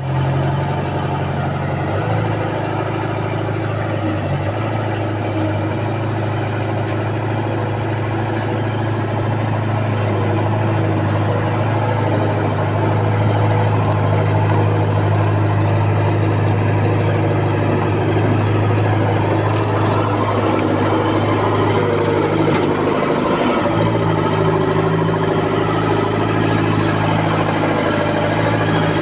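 Bobcat construction machine's engine running steadily at idle, its note shifting slightly about two seconds in and again near the end.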